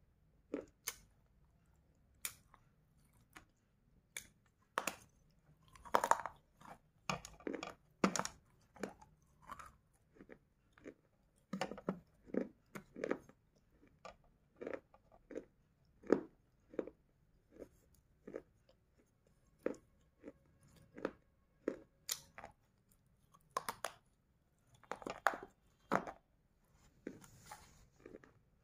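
Biting and chewing baked clay from a gullak clay pot: sharp, irregular crunches about once or twice a second, some coming in quick clusters.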